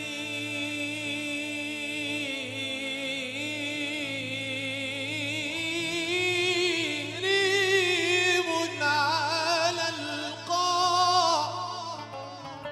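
Male voice singing a wordless, melismatic passage of an Arabic mawwal: long held notes with wide vibrato that climb higher about seven seconds in, then break into quick ornamented turns, over a steady low accompanying note.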